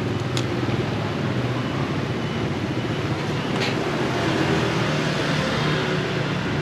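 A vehicle engine running steadily close by, a low constant hum over general street traffic noise, with a couple of faint clicks.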